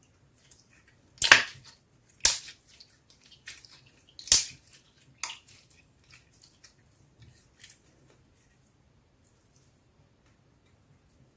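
Clear slime being squeezed and kneaded by hand, making sharp wet pops of trapped air: loud ones about one, two and four seconds in, then smaller sticky clicks and crackles that die away, with little sound near the end.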